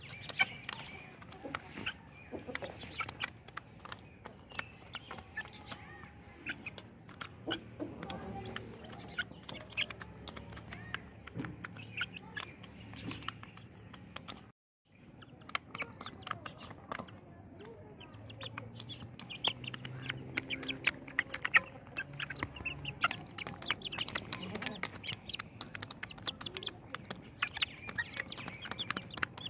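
Young aseel chickens pecking grain from a metal bowl: a fast, irregular patter of sharp beak clicks on the bowl, with some clucking. The sound breaks off for a moment about halfway.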